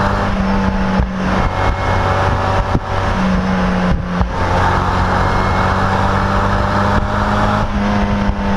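Mazda NC Miata's inline-four heard through a Flyin' Miata axle-back muffler from the open cockpit, cruising at a steady, moderate engine speed. Wind and road noise from the open top run underneath.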